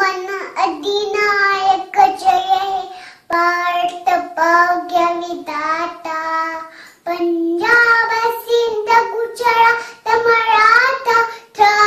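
A young girl singing solo with no accompaniment, in sung phrases broken by short pauses for breath.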